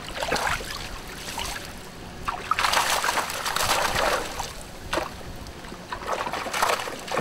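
Water splashing and streaming off a mesh dip net as it is scooped through shallow water and lifted out, in surges: a short one near the start, a longer, louder one from about two and a half to four seconds in, and another near the end.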